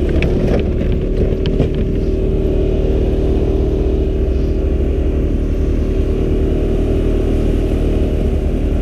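Engine of a vehicle towing a sled over snow, running steadily at travel speed with an unchanging pitch and a low rumble. A few knocks in the first two seconds come from a glove brushing the camera.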